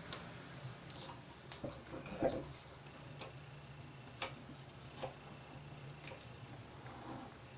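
Scattered light clicks and taps of small hand tools and steel leader wire being handled on a workbench, about eight in all and irregularly spaced, with the loudest knock about two seconds in. A faint steady low hum runs underneath.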